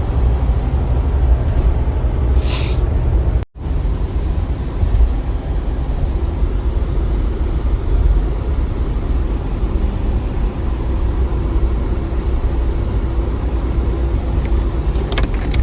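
Steady low rumble of a vehicle driving on the road, heard from inside the cab. There is a brief cut to silence about three and a half seconds in.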